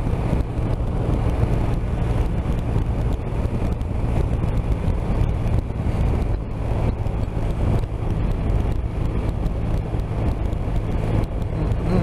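BMW R 1250 RT's boxer twin engine running steadily at cruising speed in fifth gear, its low hum heard under steady wind and road noise.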